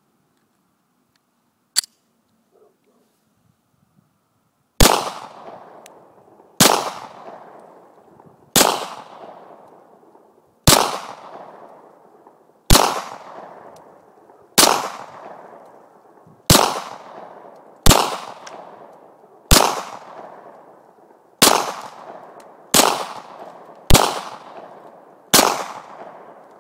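A Glock 23 .40 S&W pistol firing thirteen shots at a steady unhurried pace, one every one to two seconds, each shot trailing off in a long echo. About two seconds in, a single sharp click as the pistol is loaded.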